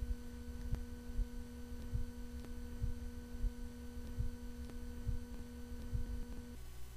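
A steady electrical hum: one low tone with its overtones. Faint short clicks are scattered through it. The hum cuts off suddenly near the end.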